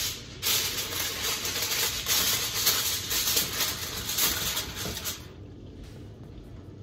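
Aluminium foil crinkling and crackling as it is spread over a pan and crimped around the rim by hand. The crackling stops about five seconds in, leaving only faint handling noise.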